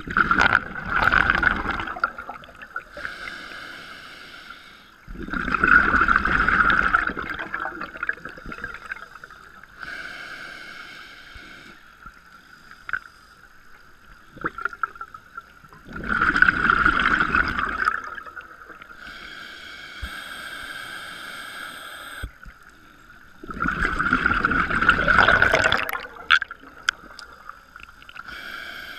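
A scuba diver breathing through a regulator underwater: four loud, bubbling exhalations of about two seconds each, with quieter hissing inhalations between them. A steady faint tone runs underneath.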